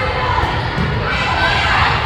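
Crowd of spectators and young players cheering and shouting, many voices overlapping, swelling near the end.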